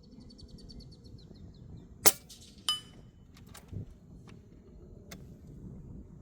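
A Hatsan Factor Sniper Long PCP air rifle fires a single shot about two seconds in, a sharp crack that is the loudest sound here. About half a second later a metallic ring comes back, consistent with the slug striking a steel target 94 m away. A bird chirps in a quick series before the shot, and a few light clicks follow.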